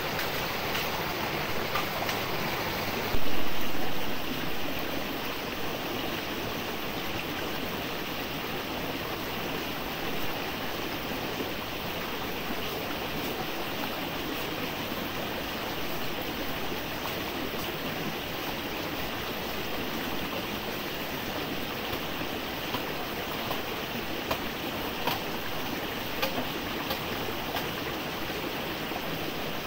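Stream water running steadily, with a brief louder burst about three seconds in and a few light clicks.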